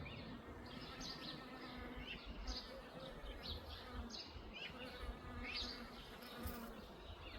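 Bees buzzing in flight, the buzz coming and going as they move about, with short high bird chirps repeating throughout.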